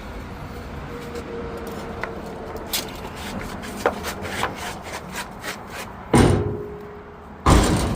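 A run of light clicks and knocks, then two loud bangs about a second and a half apart; a brief ringing tone follows the first.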